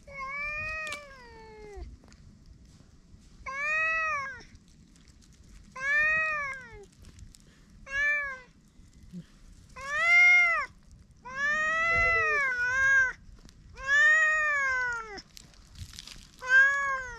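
A stray cat meowing over and over: about eight calls, each half a second to two seconds long and rising then falling in pitch, the longest with a dip in the middle.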